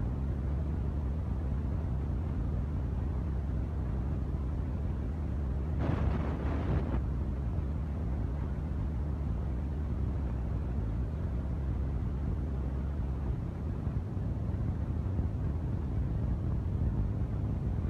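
Woodworking machine running with a steady low hum, with a brief louder burst of noise about six seconds in.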